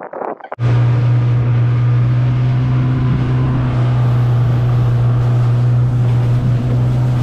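Outboard motor on an inflatable dinghy running steadily at speed, a constant low hum over the rush of the wake. It cuts in abruptly about half a second in.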